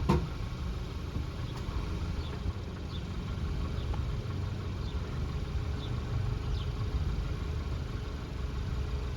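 A car engine idling with a steady low rumble, with one sharp click right at the start.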